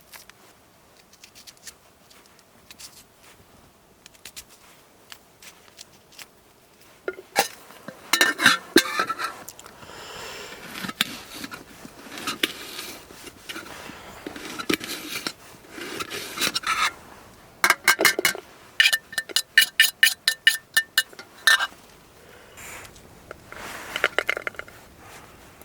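Metal cookware and utensils clinking and scraping, as in camp cooking. Near the middle comes a quick run of ringing metal taps, several a second.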